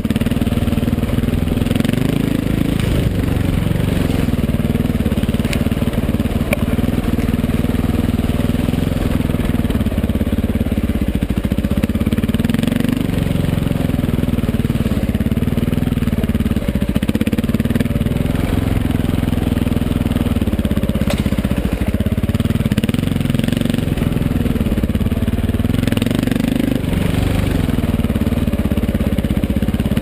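Off-road dirt bike engine running as it is ridden over rough single track, its revs rising and falling again and again as the throttle is worked.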